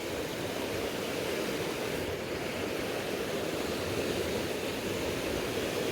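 Steady rush of fast-flowing river water, an even, unbroken noise with no other events.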